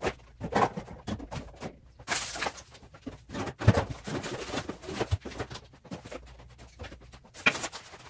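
French-door refrigerator doors pulled open and groceries handled and set onto the shelves: a run of irregular knocks, clunks and rustles, the sharpest knock a little before the middle.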